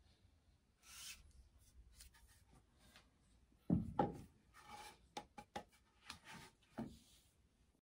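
Tools being handled on a wooden floor: a knock about four seconds in as a sledgehammer is set down, followed by several lighter taps and knocks as a length of 2x4 wood is handled. The sounds are faint, with soft rubbing between them.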